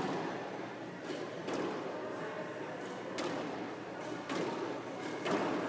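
Squash ball being struck by rackets and smacking off the court walls during a rally: a string of sharp knocks, roughly one a second, some coming in quick pairs.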